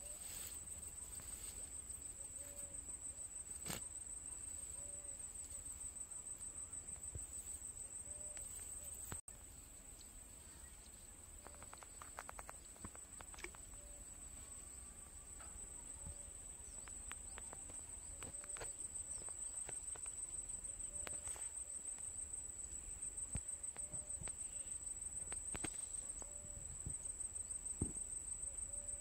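Insects chirring in a steady, high, shrill drone, with a soft short low call repeating every second or two and a few faint clicks.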